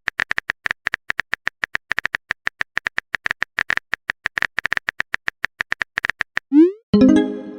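Phone-keyboard typing sound effect: quick, irregular clicks, several a second. Near the end they stop, and a short rising swoosh is followed by a message notification tone.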